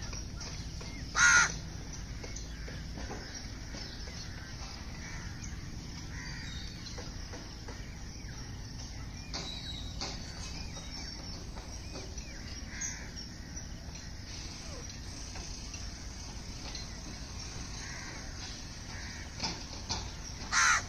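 A crow cawing: one loud harsh call about a second in, then a few more near the end, over a steady low background hiss.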